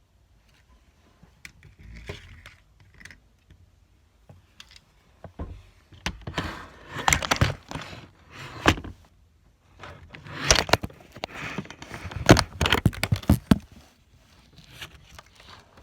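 Clattering, rattling and knocking of handled hard objects, loudest in two spells about six and ten seconds in.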